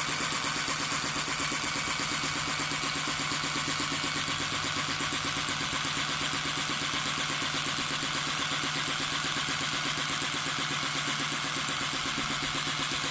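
Stingless-bee honey suction machine running steadily: a constant motor hum over an even hiss, with no change in speed.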